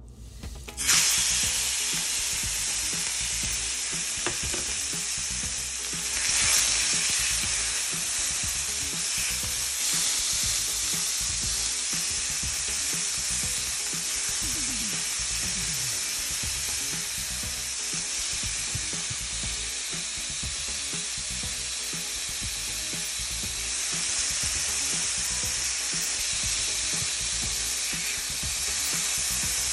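Yogurt-marinated boneless chicken pieces sizzling as they fry in hot oil in a nonstick pan, stirred and turned with a silicone spatula. The sizzle starts suddenly about a second in and swells briefly around six and ten seconds.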